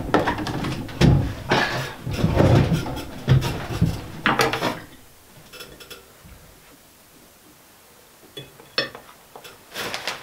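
Plastic bag crinkling and tableware handling, a fork clinking on a plate, busy for about the first five seconds, then quieter with a few scattered clicks near the end.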